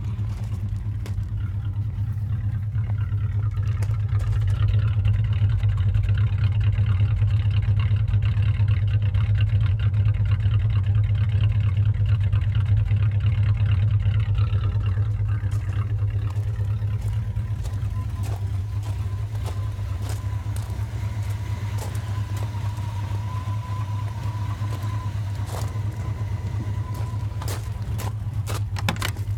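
1991 Jeep Grand Wagoneer's AMC 360 V8 running, raised above idle for about twelve seconds from a few seconds in and then settling back to idle. Scattered sharp clicks sound over it: the idle knock that the owner is trying to diagnose, which a new water pump did not cure.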